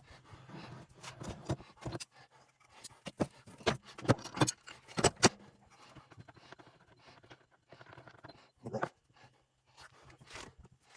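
Irregular clicks and clinks of metal transfer-case parts and tools being handled, the sharpest cluster about four to five seconds in, over a faint steady hum.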